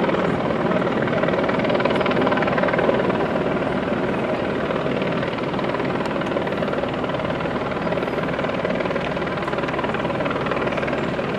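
A steady, loud mechanical drone with no breaks, a little louder in the first three seconds.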